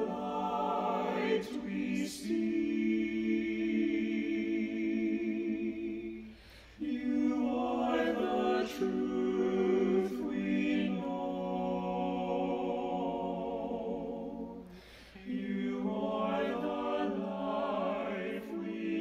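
An a cappella octet singing held chords without accompaniment, in three phrases with short breaks between them.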